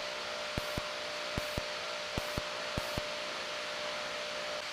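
Steady whirring hiss from a running machine with a faint constant tone. A pair of sharp ticks repeats at an even pace, about every 0.7 seconds. The tone drops out near the end.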